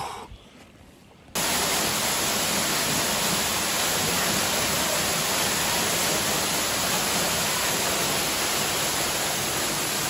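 Small waterfall pouring into a shallow pool, a steady rush of falling water that starts abruptly about a second in.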